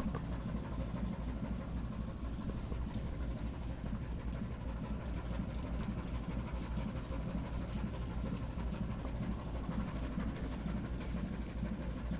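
Steady low drone of a ship's engine running, heard on deck, with faint scattered ticks over it.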